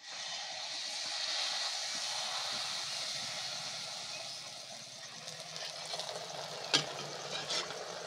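Jalebi batter frying in hot oil in a steel karahi: a steady sizzle as the batter is squeezed through a perforated skimmer into the oil. One sharp click comes about two-thirds of the way in.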